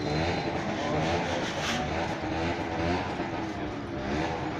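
Truck engines idling in stopped traffic: a steady low rumble.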